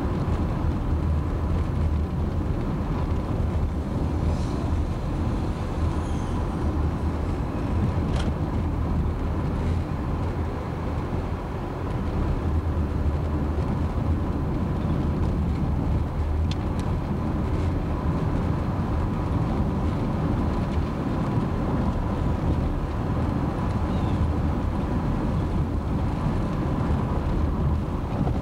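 Car interior road noise while driving: a steady low rumble of engine and tyres.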